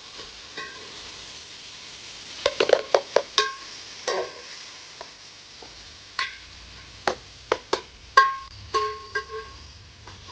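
Irregular metal clinks and taps of a utensil against a cooking pot, each ringing briefly, in clusters over a faint steady sizzle.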